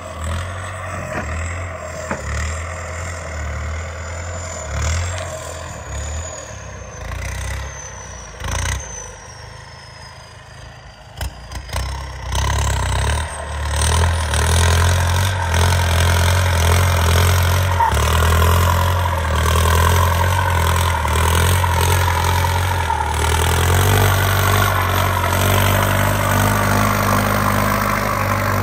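Kubota M7508 tractor's turbocharged diesel engine working under plowing load. A high turbo whistle slowly falls in pitch over the first ten seconds, then rises again about twelve seconds in. From there the engine pulls harder and runs steadily louder to the end.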